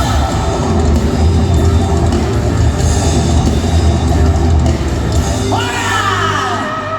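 Rock band playing loudly, with singing and yelled vocals over drums, bass and guitar. About five and a half seconds in, the low end drops away and sliding, wavering high pitches come to the fore.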